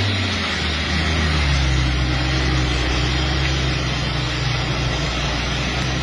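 Intercity coach bus's engine running as the bus drives slowly away round a bend, a steady low drone.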